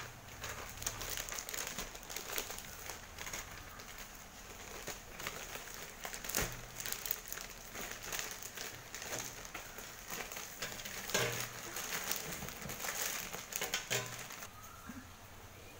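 Thin plastic courier mailer bag crinkling and rustling as it is handled and cut open with scissors, with many small sharp crackles.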